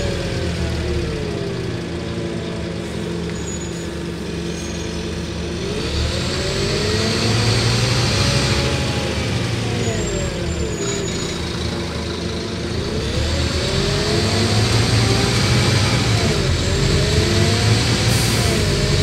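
Scania N230UD double-decker bus heard from inside on the upper deck: its diesel engine and ZF Ecolife automatic gearbox drive the bus along. The pitch rises and falls in arches about three times as it accelerates and changes gear, and gets louder about six seconds in and again past the middle.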